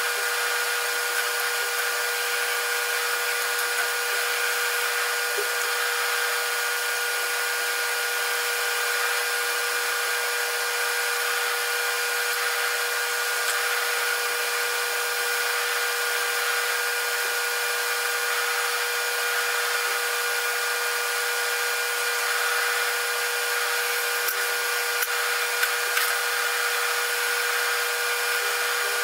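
Drill press spinning a wire cup brush, its motor giving a steady whine, while steel hand plane parts are held against the brush and scrubbed clean with a dense scratchy hiss, wire-brushing them during the plane's restoration.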